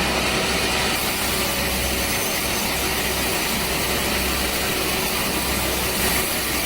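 A power saw running steadily under load while cutting wood: a dense, continuous mechanical noise with a low hum beneath it, dipping briefly about two seconds in and again near six seconds.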